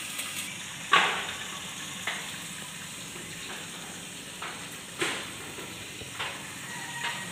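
Pieces of katla fish frying in hot oil in a lidded pan: a steady sizzle broken by several sharp spitting pops, the loudest about a second in.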